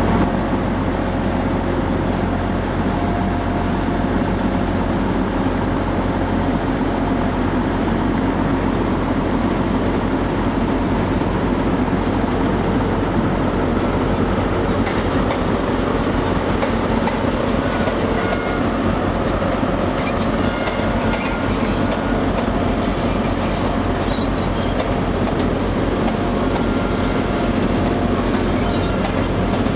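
First Great Western HST, a Class 43 diesel power car with Mark 3 coaches, running slowly into a station platform. Its diesel engine gives a steady low drone, the wheels click over the rail joints, and faint high-pitched wheel or brake squeals come in during the second half as it slows to a stop.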